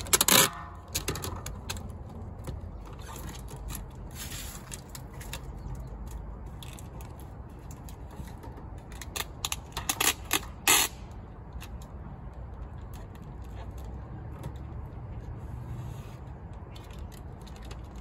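Adhesive tape pulled off the roll in short, loud ripping strips, at the very start, about four seconds in and twice around ten seconds in, as it is wrapped around a satellite dish's feed arm. A low steady rumble runs underneath.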